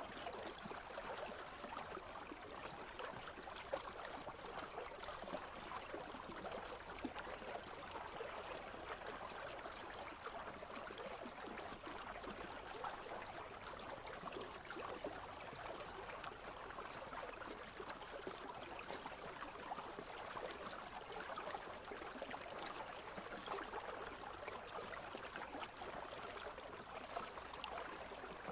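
Country stream flowing steadily, water babbling and trickling.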